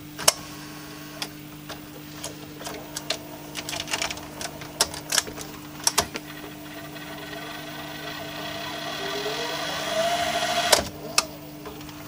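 Panasonic NV-F65 VHS video recorder rewinding a tape: a steady motor hum with scattered mechanical clicks and ticks. About nine seconds in a whine rises in pitch as the reels speed up, then it cuts off with a few clicks.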